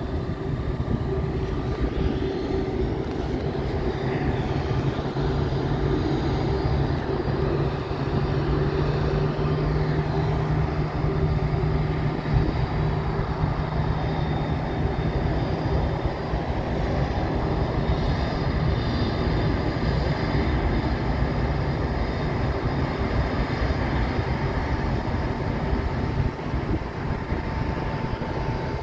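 Jet engines of an Emirates wide-body airliner running steadily as it rolls slowly along the runway: a constant rushing rumble with several steady whining tones on top.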